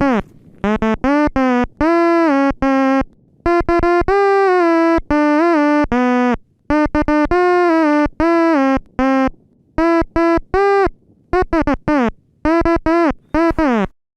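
A synthesizer lead plays a melody of short, separate notes, some held a little longer. It stops shortly before the end.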